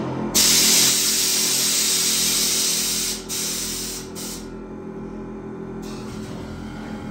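Air-ride suspension on a Chevrolet C10 pickup hissing as its valves move air through the bags: a loud hiss starts about half a second in, breaks briefly around three seconds, then drops to a softer hiss that stops about six seconds in.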